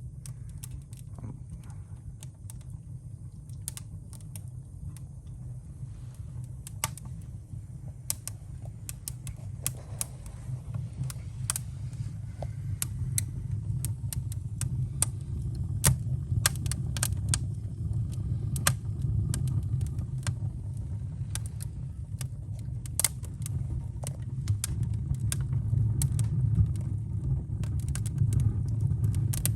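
Freshly lit wood fire in a fireplace: sharp, scattered crackles and pops over a low, steady rumble of flame and draft. Both grow louder as the fire catches.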